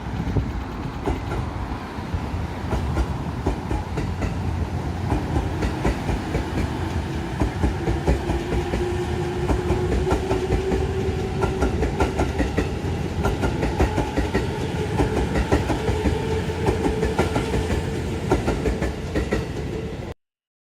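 Electric train on the JR Ito Line running past, its wheels clacking rapidly over rail joints above a steady rumble, with a motor whine slowly rising in pitch. The sound cuts off abruptly just before the end.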